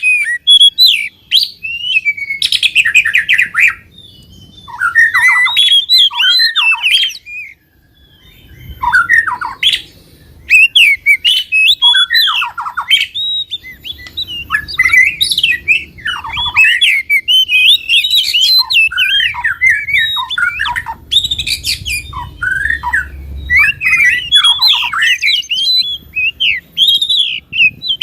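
Songbird chattering and trilling in quick runs of sweeping, twittering notes with brief pauses, a birdsong track of the kind played to caged songbirds to stir them into singing.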